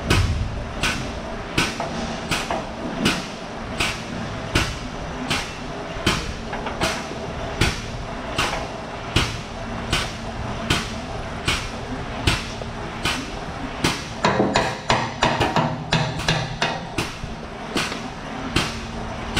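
Steady hammer blows, about four strikes every three seconds, with a quicker run of blows about fifteen seconds in, over a low background hum.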